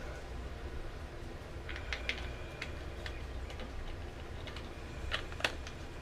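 Light clicks and taps, a small cluster about two seconds in and another near the end, over a steady low hum.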